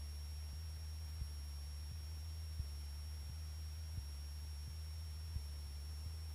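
Low, steady drone of a Cessna's engine and propeller, faint as heard through the cockpit intercom, with a thin steady high whine and a faint tick about every 0.7 seconds.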